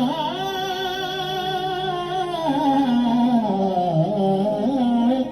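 A man singing one long wordless held note in a Hindi film-song style. The note slides up at the start, holds, then steps down about halfway through and rises again near the end.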